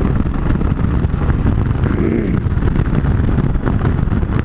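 Motorcycle running at road speed, a steady engine drone mixed with wind rushing over the microphone.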